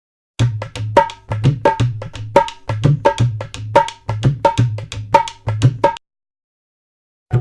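A short clip of percussion music: sharp drum strokes with a ringing pitched tone, in a quick rhythm of about two to three strokes a second. It starts just after a brief silence and cuts off abruptly about six seconds in, with another clip starting right at the end.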